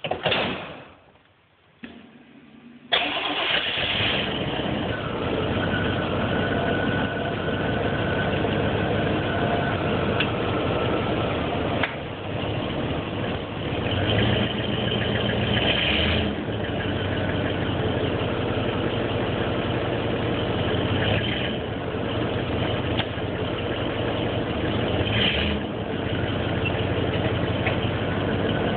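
1989 K5 Blazer's engine starting: a short crank about two seconds in, catching at about three seconds, then running steadily with a few brief changes in pitch.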